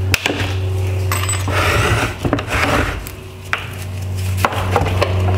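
Small flathead screwdriver prying black metal retaining tabs off a plastic LED headlight housing: several sharp metallic clicks and short scraping noises, over a steady low hum.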